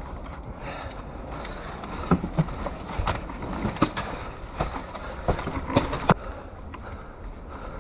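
Irregular sharp knocks and cracks, about a dozen, spread unevenly, with the loudest a little after two seconds and near six seconds, over a steady low rumbling background noise during airsoft play.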